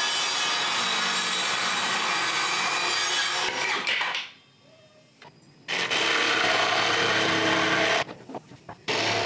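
Ingco 20V cordless jigsaw cutting a wooden strip, in three spells. A long cut stops about four seconds in, starts again after a pause of about a second and a half, and resumes after a short break with a few knocks near the end.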